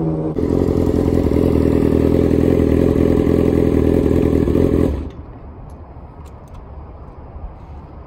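Motorcycle engine running loudly and steadily, cutting off abruptly about five seconds in; quieter background noise with a few light clicks follows.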